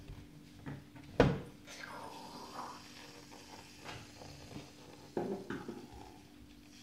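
Objects knocked and handled on a tabletop: a sharp knock about a second in, faint handling noise after it, and a second cluster of knocks about five seconds in.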